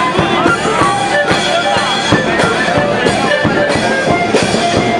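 Loud music with drums, dense and steady throughout.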